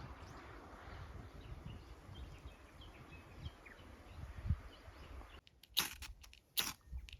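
Faint birds chirping over a low outdoor rumble. About five seconds in the background drops away and three sharp cracks follow.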